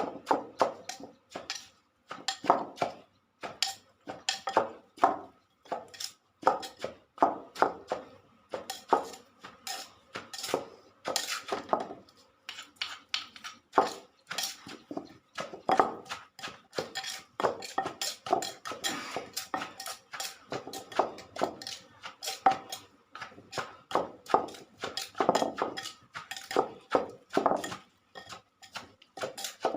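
Pestle pounding papaya salad in a mortar: repeated knocks, about two to three a second, mixed with clinking, with a short pause about twelve seconds in.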